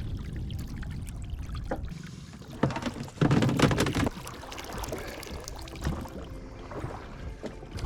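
Small tender dinghy moving through water: water sloshing and splashing against the hull, louder for a second or so about three seconds in, with a few light knocks.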